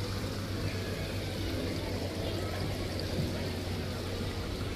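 Steady noise of running water, over a low steady hum.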